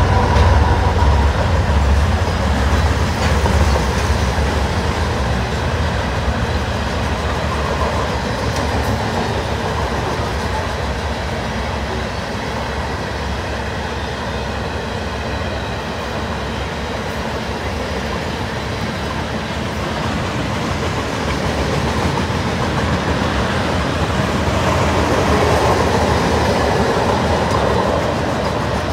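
Covered hopper cars of a long freight train rolling past, their wheels running on the rails in a steady rumble. It is loudest in the first few seconds, then evens out.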